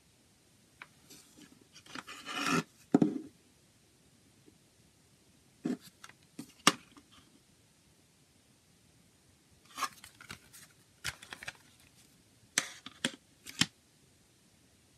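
Plastic CD jewel case handled on a table: a short scrape, then scattered sharp clicks and taps as the case is turned over and opened.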